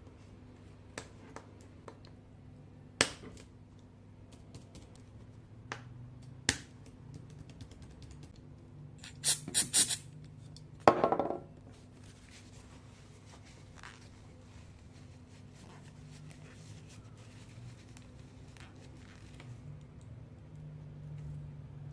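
Scattered clicks and light scrapes from hands working on a laptop keyboard. A quick cluster of sharp clicks comes about nine seconds in, followed by a short rattle, over a steady low hum.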